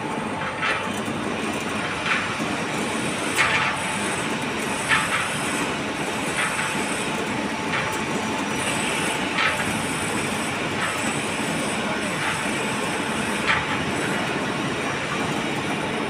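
Hydraulic wheel press running steadily while a railway wheel is pressed onto its axle, with a short click repeating about every one and a half seconds.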